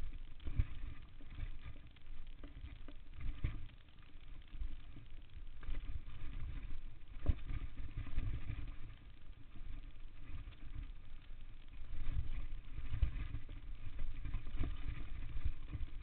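Downhill mountain bike riding fast over a dirt trail, heard from a chest-mounted camera: a steady low rumble of wind and tyres on dirt, broken several times by sharp knocks and rattles as the bike hits bumps.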